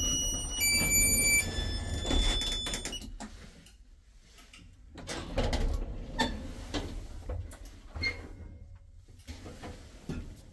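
Marrocco hydraulic lift arriving at a floor: a short electronic chime of several stepped tones, then the cab's automatic sliding doors open with a series of clicks from the door mechanism.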